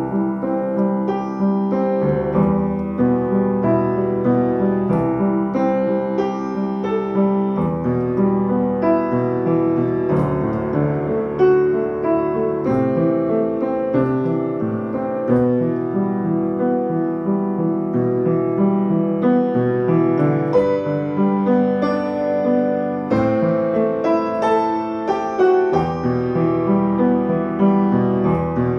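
Upright piano played solo: chords held under a melody, with new notes struck every fraction of a second and a steady level throughout.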